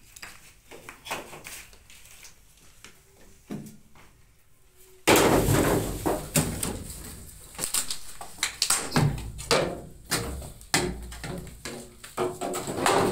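Knocks and clatter of bamboo poles being moved and stepped on, a few light clicks at first, then much louder and busier from about five seconds in.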